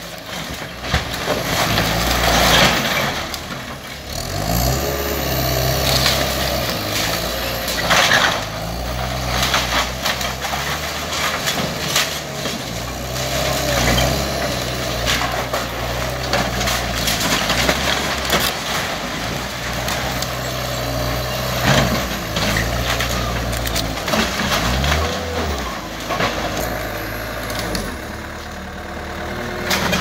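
Skid steer engine running under load, its pitch rising and falling, while wooden house framing cracks, splinters and crashes down under the machine in many sharp, irregular breaks.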